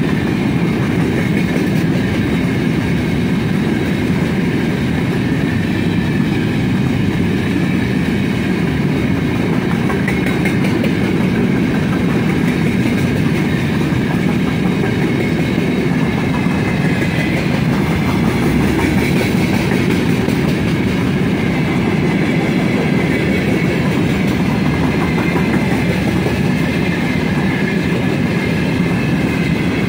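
Freight train of open gondola wagons rolling past at speed: a steady rumble and clatter of steel wheels on the rails, with a faint high metallic ringing above it.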